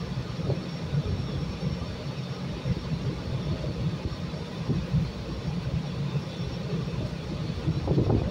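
Steady low rumble from a CTA 5000-series rapid-transit car standing at the station with its doors open, its onboard equipment running.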